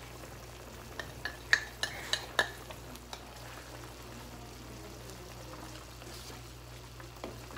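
Wooden spoon stirring leaves into simmering broth in a metal wok, with a few sharp knocks against the pan between about one and two and a half seconds in, then quieter stirring and bubbling.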